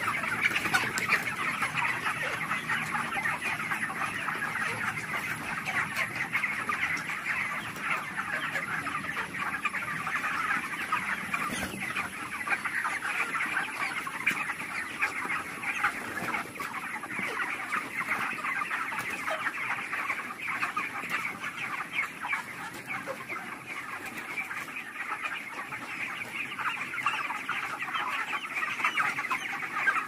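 A large flock of white broiler chickens calling all at once: a dense, unbroken chorus of many overlapping short calls that holds steady throughout.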